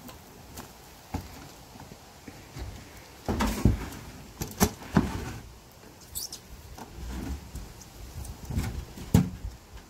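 Scattered wooden knocks and scrapes as a plywood sheet is handled and a manual wheelchair moves about at a shed doorway. A cluster of sharp knocks comes about three to five seconds in, and another single knock near the end.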